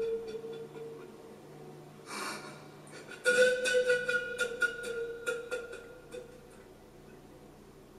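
Romanian pan flute (nai) played slowly: a long held note fades out, a breath of air follows, then another long note at about the same pitch with breathy, chiffy attacks dies away about six seconds in. Heard through a television's speaker.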